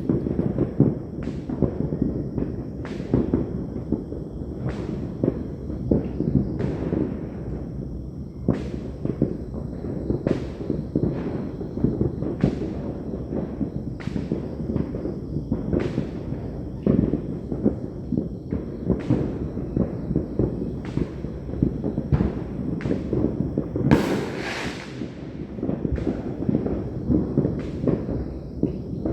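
New Year fireworks and firecrackers going off all around: a dense, continuous rumble of overlapping booms with sharp cracks about once a second. About two-thirds of the way through, a brief hissing burst stands out and fades over about a second.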